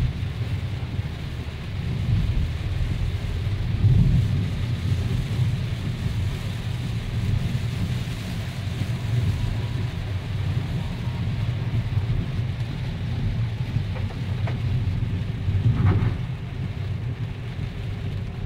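Heavy rain on a car's windscreen and roof heard from inside the moving car, over a steady low rumble of tyres on the wet road. Two brief thumps stand out, about four seconds in and near the end.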